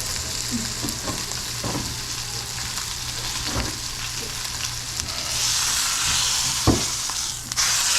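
Tomahawk roast searing in a smoking-hot pan, the meat and fat sizzling steadily. The sizzle swells louder about five seconds in, with one sharp knock near the end.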